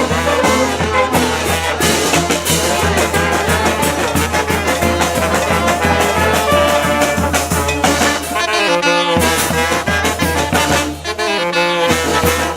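A street brass band playing loudly: massed horns over a steady bass line and drum beat.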